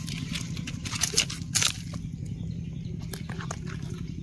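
Dry leaf litter rustling and crackling, loudest in a few crackles between about one and two seconds in, over a steady low rumble.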